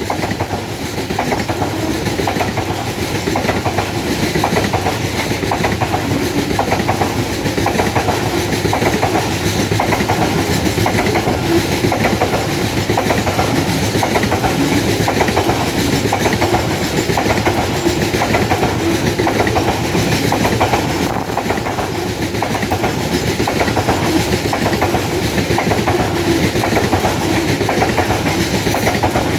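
A long coal freight train rolling past, its wheels clattering steadily over the rail joints wagon after wagon.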